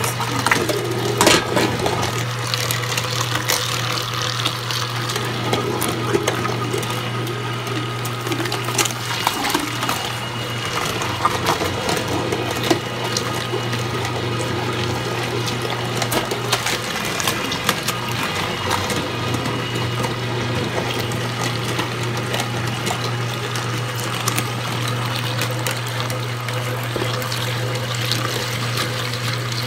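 Electric meat grinder running steadily under load, its motor humming as raw chicken leg quarters and gizzards are pushed through, with occasional sharp cracks as pieces go through the auger.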